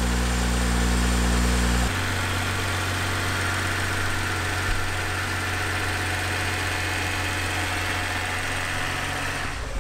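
BMW 135i's N55 turbocharged inline-six idling steadily on its first start after the car was wrecked, running smoothly and sounding healthy. Its tone changes abruptly about two seconds in.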